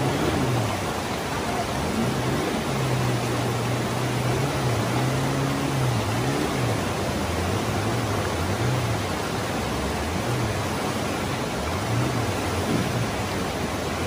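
River rapids rushing steadily over rocks, with a faint low wavering hum underneath.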